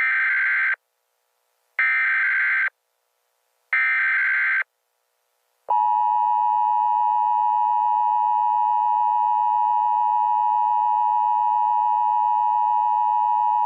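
Emergency Alert System tones: three short buzzy data bursts of the SAME header, each just under a second long and about a second apart. Then the steady two-tone EAS attention signal is held for about eight seconds and cuts off abruptly.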